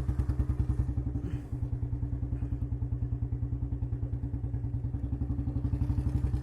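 Royal Enfield Bullet single-cylinder engine running at low revs through an aftermarket C-bend header pipe fitted in place of the stock bend, giving an even, loud exhaust thump of about nine beats a second. The beat dips briefly about a second and a half in, then picks up again.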